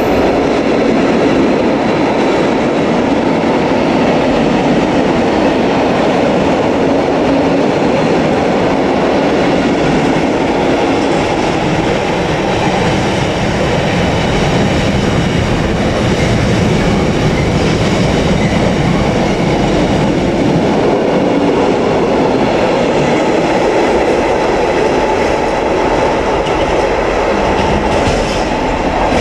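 Intermodal container freight train's loaded flat wagons rolling past on the near track, a loud, steady rumbling with wheels clattering over the rails.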